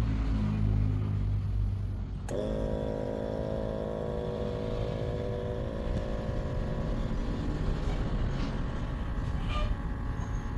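Water dispenser's newly replaced pump motor starting with a sudden switch-on about two seconds in, then running with a steady hum as it draws water up from the bottle. The pump now works where the old one failed to draw water.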